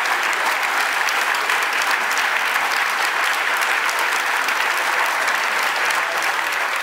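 A theatre audience applauding: a steady, dense patter of many hands clapping.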